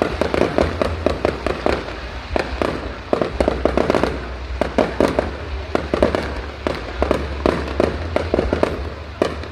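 Fireworks going off in a dense, continuous barrage of sharp bangs and cracks, several a second, over a steady low rumble.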